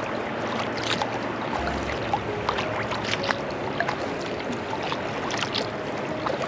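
Kayak paddle strokes in lake water: a steady wash of splashing with many small drips and trickles.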